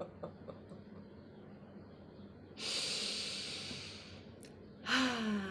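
A woman's 'ho-ho' laughter trails off at the start. About two and a half seconds in comes a long, noisy breath lasting about a second and a half, then near the end a short breathy voiced sigh that falls in pitch, part of a snore-and-laugh breathing exercise.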